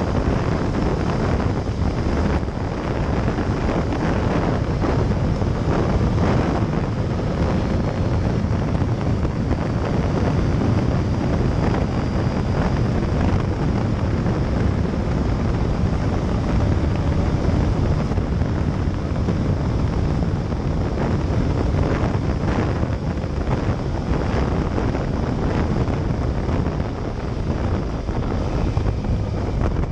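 Yamaha Fazer motorcycle riding at speed, its engine running under steady wind noise buffeting a tank-mounted camera's microphone.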